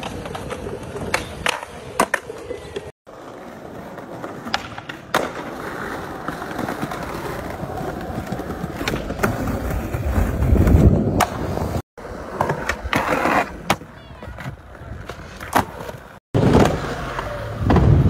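Skateboard wheels rolling over hard ground, with sharp clacks of tail pops and board landings, across several short skate clips. The sound cuts out abruptly three times between clips.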